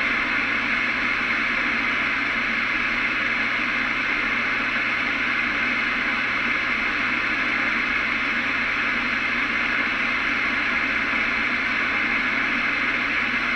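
Steady static hiss from a CB radio's speaker, with no voice coming through, as stations struggle to get in. It does not change.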